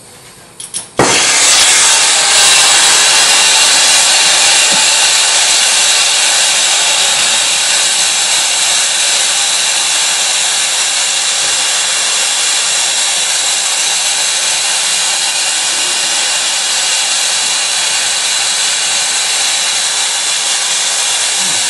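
Gas brazing torch lit about a second in, then its flame hissing loudly and steadily while heating a copper tube.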